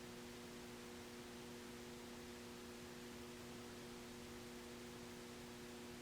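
Faint steady mains hum, a few even tones held level over a soft hiss: room tone.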